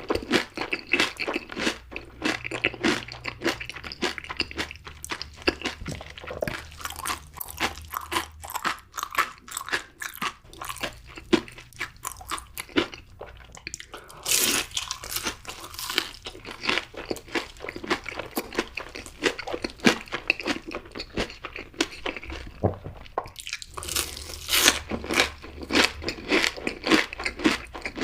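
Close-miked biting and chewing of crunchy food: a steady run of crackly crunches, with louder bites about halfway through and again near the end.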